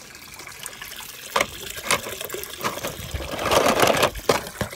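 Water splashing and trickling in a small pool of floating plastic balls, loudest about three seconds in, with a few sharp plastic clicks and knocks.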